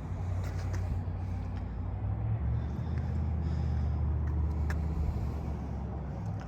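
A motor vehicle's low, steady engine rumble that swells for a few seconds in the middle, with a few faint clicks over it.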